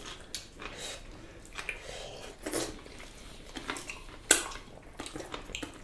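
Plates, bowls and cutlery clinking and tapping at a dinner table as food is scooped up, in scattered short knocks with one sharper clink a little past four seconds in.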